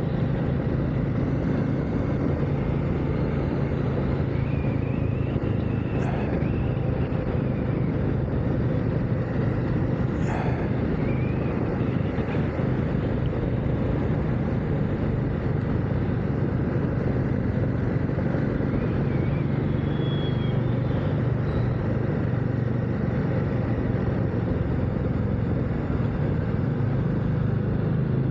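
KTM 890 Adventure R's parallel-twin engine running at a steady cruise, its drone mixed with steady wind and road noise.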